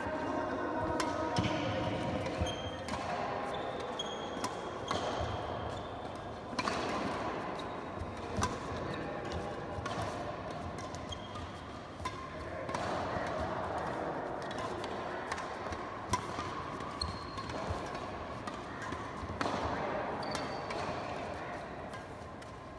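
Badminton rally: rackets strike the shuttlecock with sharp pops every second or two, mixed with footsteps and short, high shoe squeaks on the court, echoing in a large hall.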